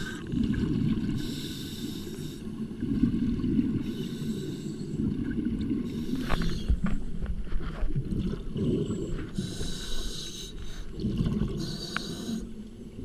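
Scuba diver breathing through a demand regulator underwater: four hissing inhales a few seconds apart, each followed by the low bubbling of exhaled air escaping the exhaust valve.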